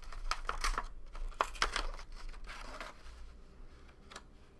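Plastic packaging crinkling and tearing as a packed box-break item is unwrapped, with several sharp crackles in the first few seconds, then quieter handling and a few light clicks.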